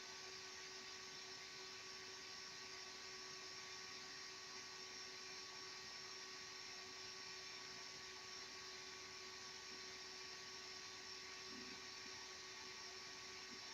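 Small fan on a Peltier cooling unit running steadily: a faint, even whir with a constant whine.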